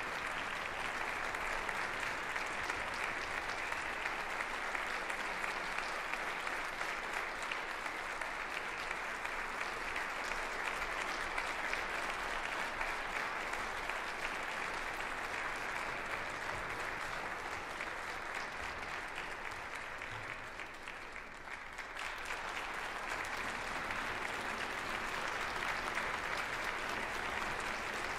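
Concert audience applauding steadily after the bass trombone concerto. The clapping dips briefly about three-quarters of the way through, then swells again.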